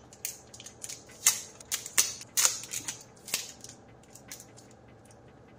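Crinkling and crackling of a small clear plastic bag being opened by hand. Sharp crackles come over the first three and a half seconds, then fade to faint rustling.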